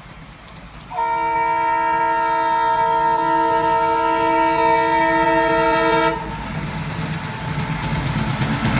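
WDM3A diesel locomotive sounding its horn in one long blast of about five seconds, several notes held together, starting about a second in. After the horn stops, the locomotive's diesel engine rumbles and grows louder as it approaches.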